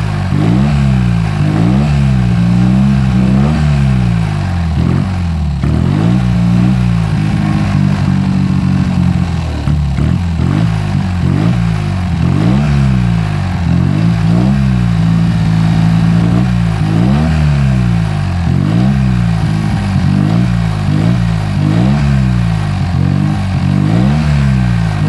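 Tuned Fiat 500 air-cooled two-cylinder engine, running loud through a short open exhaust, revved up and down by hand in repeated blips about once a second, with a few brief steadier stretches between.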